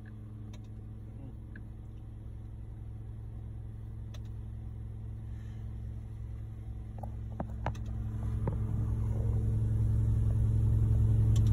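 Concrete mixer truck's diesel engine running with a steady low hum, growing steadily louder, with a few faint clicks.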